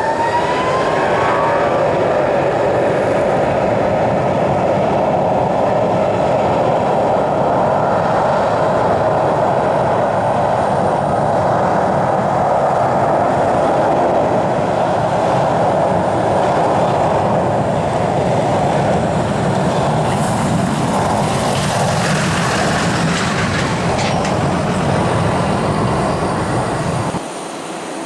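Rolls-Royce Trent 892 turbofans of a Boeing 777-312 running loudly as the jet moves at speed along the runway: a steady jet roar with a whine shifting in pitch near the start. The sound drops away abruptly about a second before the end.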